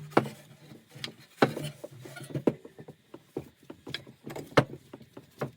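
Irregular wooden knocks and creaks as the pine toggle stick of a homemade bow saw is turned to twist the rope tight and tension the blade.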